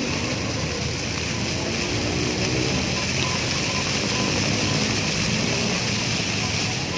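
Fountain water jets rushing up and splashing back down into the pool: a steady, even rush of falling water.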